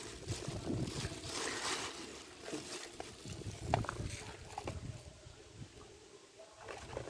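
Plastic bag rustling, then a dog eating dry kibble from a foam tray, with scattered crunches and clicks.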